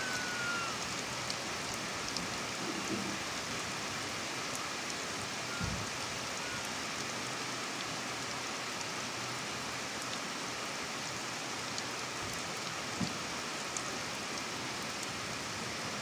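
Heavy rain falling steadily, with water streaming off a roof edge; a few separate drip ticks stand out from the even hiss.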